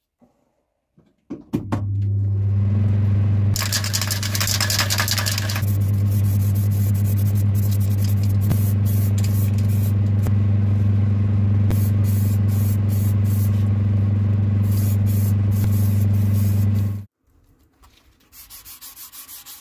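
An electric motor switches on, hums steadily for about fifteen seconds and cuts off suddenly, while a hiss of spraying rises over it, strongest for a couple of seconds about four seconds in and then in short spurts near the end: a coat of thick-build 1K filler primer being sprayed onto a moped fuel tank.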